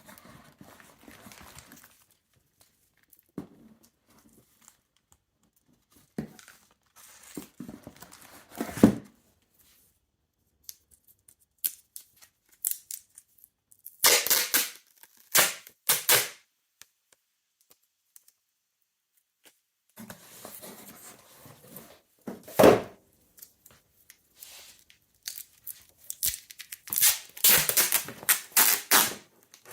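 Amazon Basics packing tape being pulled off its roll in several separate, very loud ripping pulls, with quieter rustling and a few knocks in between. The loudest pulls come about halfway through and near the end.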